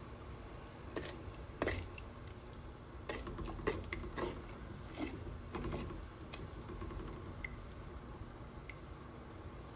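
A spoon stirring thick brown sugar and coconut milk syrup in a metal pot, with a run of clicks and light knocks against the pot from about a second in to about six seconds, then a few faint ticks.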